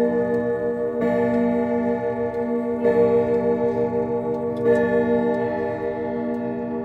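Grandfather clock striking the hour: a deep, warm chime struck about every two seconds, three strokes here, each ringing on and slowly fading, with the movement ticking underneath.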